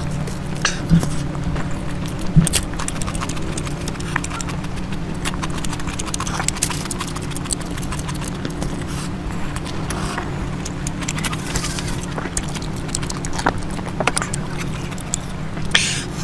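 A person eating, with irregular wet chewing and smacking clicks over a steady low hum.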